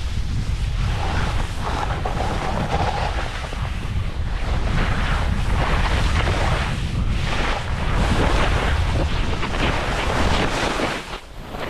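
Wind rushing over the microphone of a skier on the move, with skis hissing through the snow in turns about once a second.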